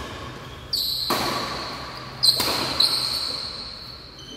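Badminton racket strokes on a shuttlecock in an echoing hall: about five sharp hits within two seconds, the loudest near the middle, with a high squeak running underneath them.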